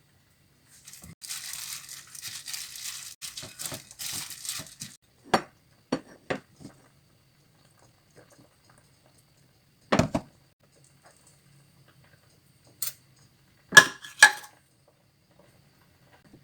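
Crinkling and rustling of kitchen wrapping for about four seconds, then a scatter of separate knocks and clatters of dishes or containers, the loudest two close together near the end.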